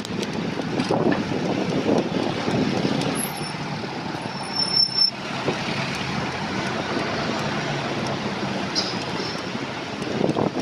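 Road traffic noise heard from a bicycle moving along a city street, with a brief high squeal about halfway through.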